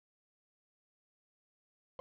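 Silence, with music starting at the very end.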